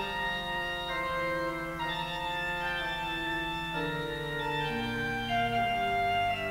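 Organ music: slow, sustained chords, each held for a second or more before moving to the next.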